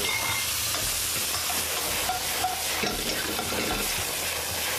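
Strips of winter melon sizzling steadily in a hot, oiled wok as they are stir-fried.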